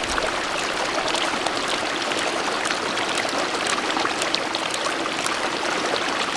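Small mountain stream running steadily over stones, with faint, irregular ticks mixed in.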